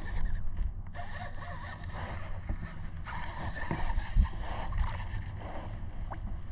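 Kayak on the water: faint water and handling noise against the hull, with a few small knocks over a steady low rumble.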